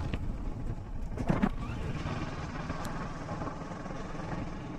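Kawasaki Versys motorcycle running steadily under way, a continuous low engine and road rumble.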